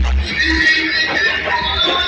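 Worship music: a band playing with voices singing, over a strong low bass.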